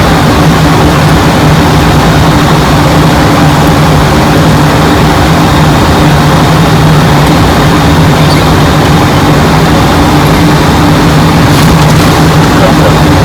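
Steady, loud drone inside a jet airliner's cockpit in flight: engine and airflow noise with a constant low hum.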